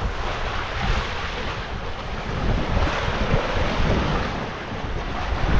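Wind buffeting the microphone over the rush of sea water, aboard a sailing catamaran under way.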